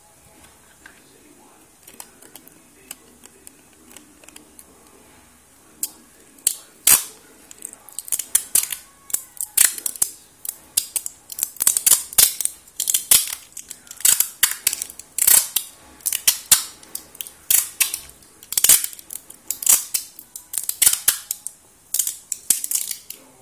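A few faint clicks, then from about six seconds in a rapid, irregular series of sharp cracks and pops that grows denser and keeps going.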